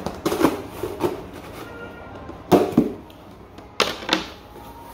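Scissors cutting the packing tape on a cardboard box and the cardboard flaps being pulled open: several short scraping, rustling bursts, the loudest about two and a half seconds in and again near four seconds.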